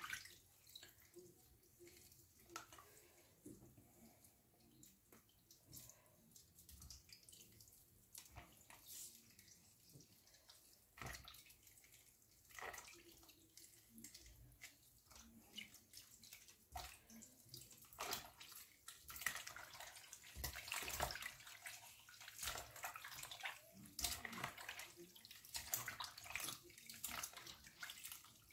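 Faint splashing and sloshing of water as hands squeeze and knead cut lemon pieces in a bowl of water, in short irregular splashes that grow busier in the second half.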